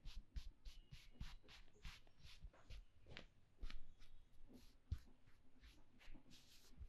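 Faint scratching and rubbing of fingers working over a scalp and through hair during a head massage, in quick, irregular strokes, several a second.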